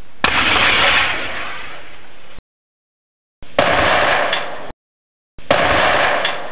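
Powder fire-extinguishing modules going off three times, each a sudden blast followed by a rushing hiss of discharging powder that fades over a second or two, with silent gaps between.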